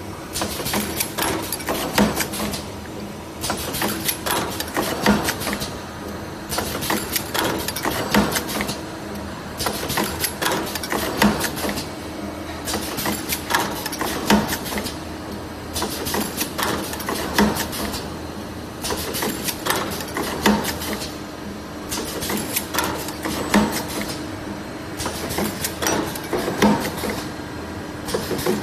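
Automatic wire ring making machine running in a steady cycle that repeats about every three seconds, each ring formed and butt-welded in turn: a burst of clattering clicks and air hiss from its pneumatic clamps and welder, over a constant hum.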